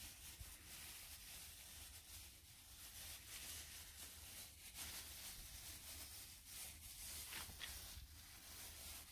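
Near silence, with a faint crinkling rustle from a plastic bag, worn as a glove, rubbing along a metal exhaust pipe.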